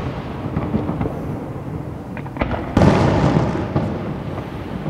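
Aerial firework shells bursting: a few sharp cracks over a fading rumble, then one loud boom a little past halfway that rumbles away over the next couple of seconds.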